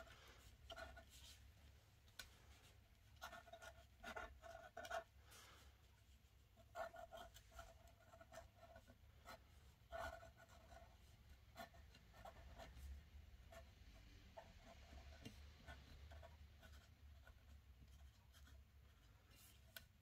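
Faint scratching of a fine 0.3 mm pen drawing short strokes on paper. The scratches come in small groups every second or so, with pauses between them.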